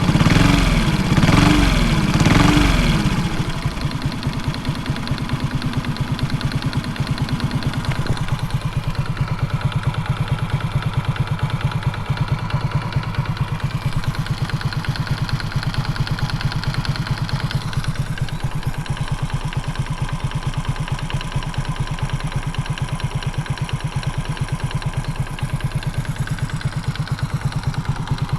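Honda Super Cub four-stroke single-cylinder engine, bored up to 88cc, revved in a few quick blips, then settling to a steady idle with even firing pulses. It carries an abnormal knocking noise that the owner suspects is piston slap.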